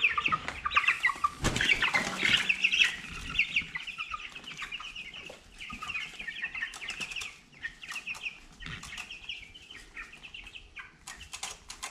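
Young chickens chirping and peeping, busiest in the first three seconds and thinning out after, with scattered short rustles and clicks.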